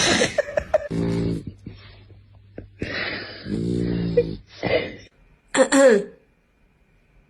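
Sleeping dog snoring twice, each snore a low buzzing sound about half a second long, then a short falling groan about a second before the end.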